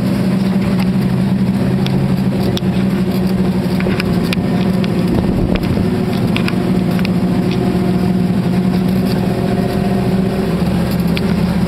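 Jeep engine running at a steady speed while driving off-road, heard from inside the open cab, with scattered knocks and rattles from the body over the rough ground.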